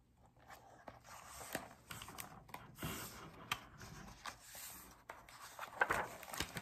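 Paper pages of a picture book rustling and scraping as a hand handles and turns them, with scattered small clicks and the loudest flick of the turning page near the end.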